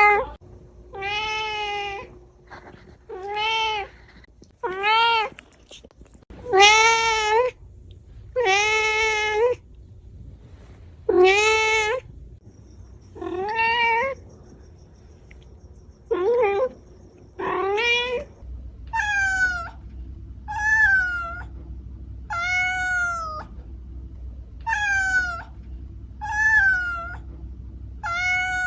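Domestic cat meowing over and over, one meow every second or two. After about eighteen seconds the meows turn higher-pitched and more evenly spaced.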